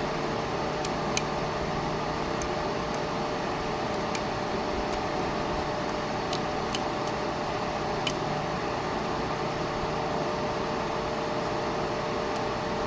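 Electric fan running steadily with a low hum. Faint, scattered light clicks from lock picks working the pins of a pin-tumbler lock cylinder are heard over it.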